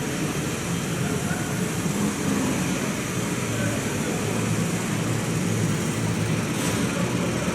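A train's diesel engine running steadily with a low, even rumble, and a short hiss about seven seconds in.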